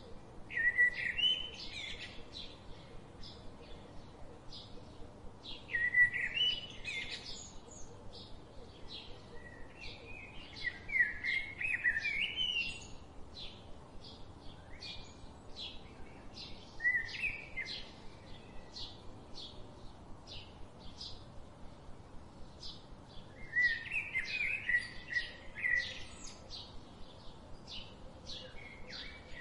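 Songbirds: one bird sings short warbled phrases every few seconds, about five in all, over a steady run of quick, short chirps from another bird.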